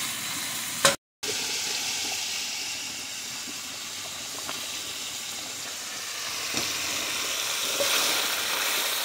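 Diced chicken breast sizzling in a frying pan with a steady hiss: the juices it released have cooked off and the pieces have started to fry. The sound drops out briefly about a second in.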